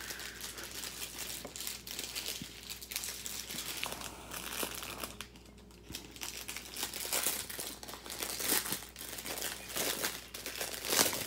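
Small plastic bags of diamond-painting drills crinkling as they are handled, in irregular bursts with a brief lull midway and a louder crinkle near the end.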